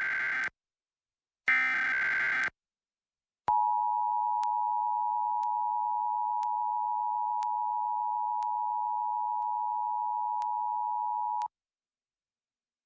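Emergency Alert System SAME header data bursts: the tail of one buzzing, warbling digital burst, then a second full one-second burst. About a second later the EAS two-tone attention signal (853 and 960 Hz together) comes in and holds steady for about eight seconds before cutting off abruptly. This is the opening of an EAS alert, here a National Periodic Test.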